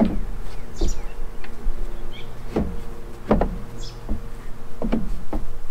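A steady buzzing hum with several pitches running throughout, cut by about seven sharp knocks and thumps at uneven intervals.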